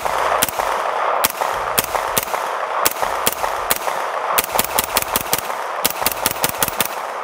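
Angstadt Arms UDP-9, a direct-blowback 9mm braced pistol, firing about two dozen semi-automatic shots. A few come spaced out at first, then quicker strings of rapid follow-up shots.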